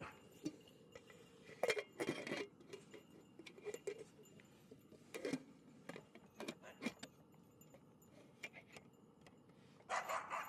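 Irregular clinks, clacks and rattles of small hard objects being handled, loudest a couple of seconds in and again near the end.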